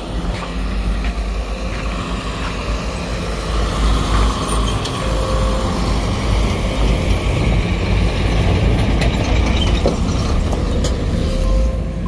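Heavy dump truck engine running as the truck drives past close by, over a steady low rumble that grows louder about four seconds in and eases near the end.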